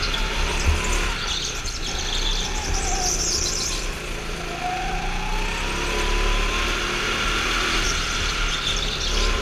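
Go-kart engine running at speed, its pitch rising about halfway through as the kart accelerates out of a corner, with squealing tyres on the track floor.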